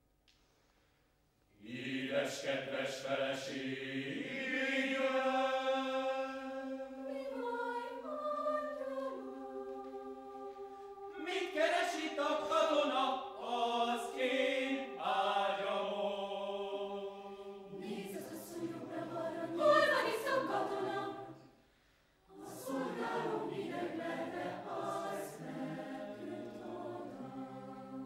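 Mixed choir singing a cappella: held chords with some voices moving against them, sung in phrases. The singing starts after a brief pause, stops in another short pause about 22 seconds in, then picks up again and breaks off near the end.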